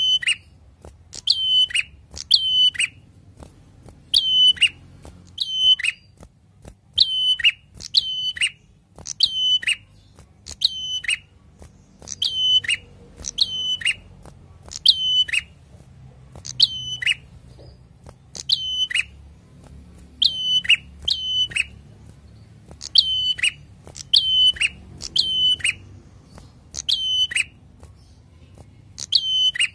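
Caged ashy tailorbird singing: loud, sharp, ringing notes that fall steeply in pitch, often in quick pairs, repeated about once every second or so without a break.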